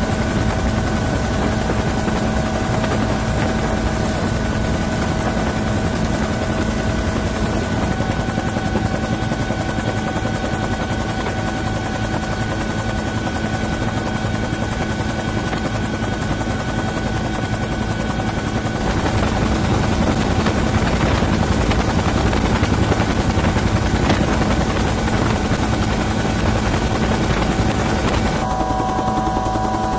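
UH-1N Huey helicopter in flight, heard from inside the cabin: a steady turbine whine over the rapid beat of the rotor, changing in tone near the end.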